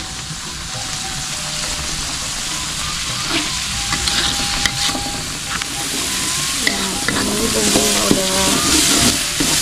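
Spice paste with bay leaves sizzling in hot oil in a wok, growing louder as it heats. From a few seconds in it is stirred with a metal spatula scraping against the pan.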